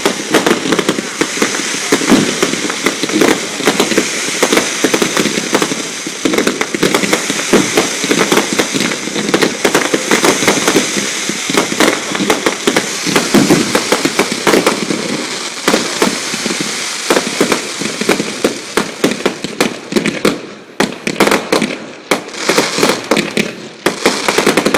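Fireworks display: a dense, continuous barrage of bangs and crackling. It thins out briefly about twenty seconds in, then picks up again.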